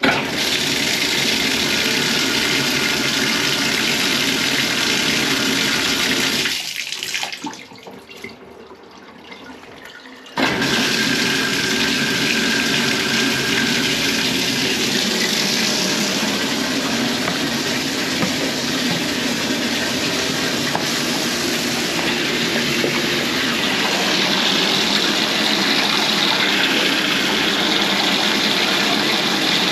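Water rushing and splashing steadily through a toilet being tested for a weak flush. It falls away about six seconds in and starts again suddenly about ten seconds in, then runs on steadily.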